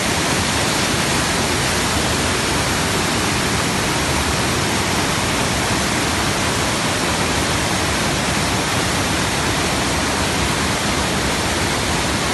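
Rushing white water of small waterfalls and a rocky stream cascade: a loud, steady wash of noise.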